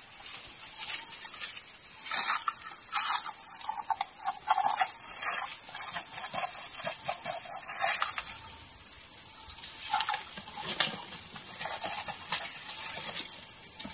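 Steady high-pitched drone of insects in the forest canopy, with scattered short rustles and snaps from leaves and twigs as a pole with a collecting bag is worked in the branches of a weaver ant nest.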